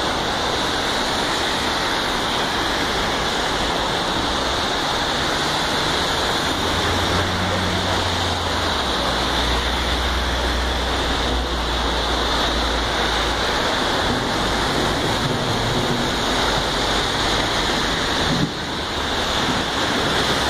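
Heavy rain and car tyres hissing through standing water on a flooded road, a steady rushing noise. A low vehicle rumble swells in the middle as a car passes close by.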